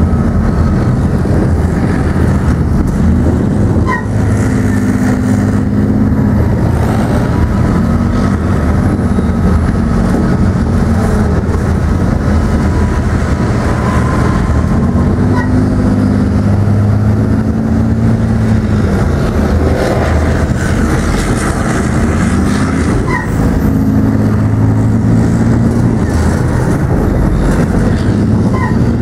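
Leopard 2 tank on the move, heard from on top of the hull: its V12 diesel engine and tracks run loud and steady, the engine note rising and falling as speed changes, with a few short squeaks.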